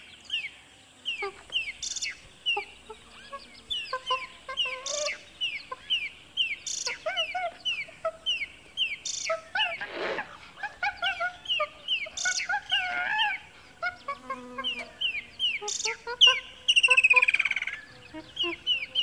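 Monkey calls amid jungle birdsong: a steady run of short, high, falling chirps about twice a second, with lower squeaky calls mixed in. Near the end comes a loud, fast rattling chatter.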